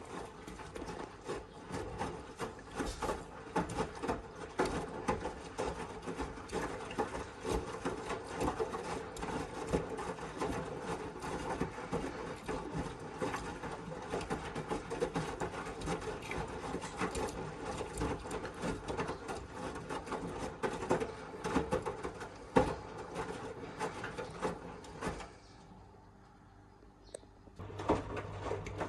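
Miele W1 front-loading washing machine running a wash cycle: a steady motor tone with continuous clicking and rubbing from the turning drum. About 25 seconds in it goes quiet for a couple of seconds, then starts again with a low hum, as the drum pauses between turns.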